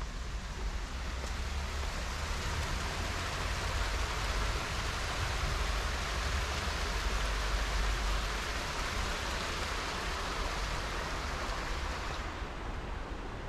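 Steady rushing of running water, fullest through the middle and easing off near the end, over a low rumble.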